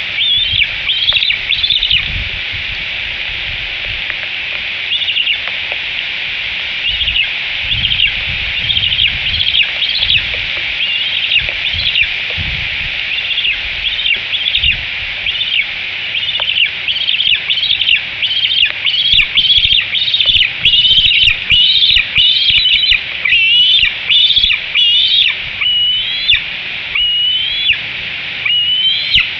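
Bald eagle chirping: short, high-pitched calls repeated over and over, sparse at first and coming quickly, one after another, in the second half, over a steady hiss.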